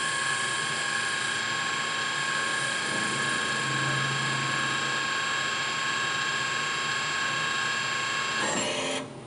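Newen Contour-BB valve seat machine running a single-point cut on an intake valve seat, a steady high whine with a hiss. Near the end it winds down with a brief falling tone and stops abruptly.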